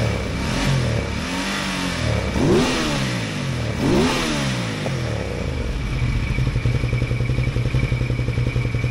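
L-twin motorcycle engine running, blipped about three times in the first five seconds, then settling to a steady, even idle. Both cylinders are firing cleanly, with matching oxygen-sensor readings, after a misfire on the front cylinder traced to a loose ignition coil.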